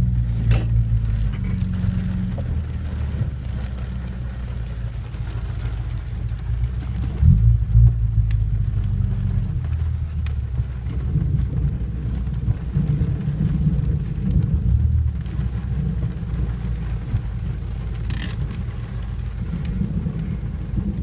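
Car running and being manoeuvred, heard from inside the cabin as a steady low rumble, with a louder swell about seven seconds in.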